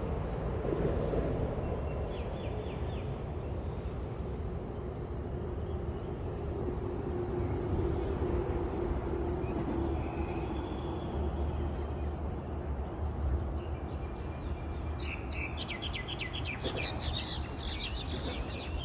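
Steady rumble of motorway traffic on the overpass above, with birds chirping over it: a few chirps early and a quick run of repeated high chirps near the end.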